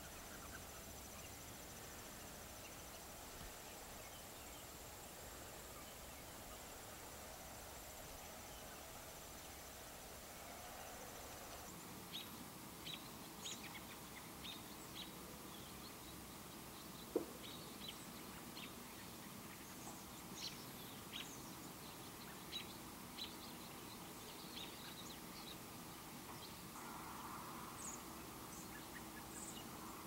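Small birds giving short, scattered high chirps, starting about 12 seconds in, with one sharp click partway through. Before the chirps there is only faint outdoor background with a thin, steady high insect trill.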